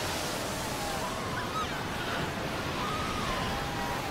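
Surf breaking and surging over a crowded group of fur seal pups: a steady rush of churning seawater, with faint wavering calls from the pups above it.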